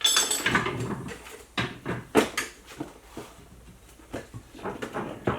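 A screwdriver jabbed through the top of a cardboard box: a run of irregular hollow knocks and thuds, punching holes to hold pushrods in order.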